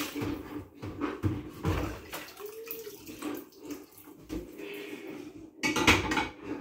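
Washing-up water splashing and sloshing in a stainless steel kitchen sink, with irregular knocks and clatters and a louder burst about six seconds in.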